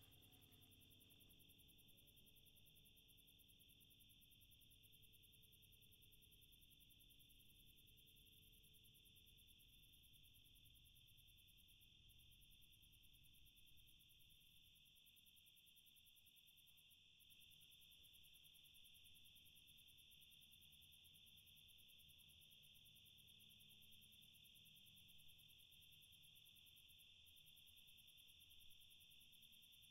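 Faint crickets chirring steadily, a night-time background. A few low sustained tones fade out over the first several seconds.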